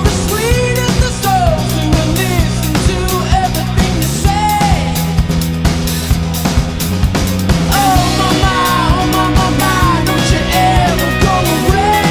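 Background song in an instrumental stretch: a gliding lead melody over held bass notes and a steady drum beat.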